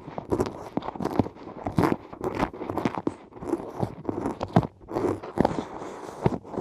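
Close-miked ear-cleaning ASMR sounds: crunchy scraping and crackling in a microphone ear, coming in irregular strokes a few times a second.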